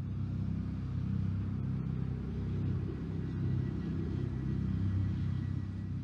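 Low, steady rumbling drone from a TV station ident's sound effect.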